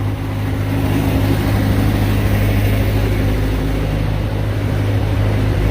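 Bobcat S205 skid steer's diesel engine running steadily just after a cold start on glow plugs, with a low, even hum.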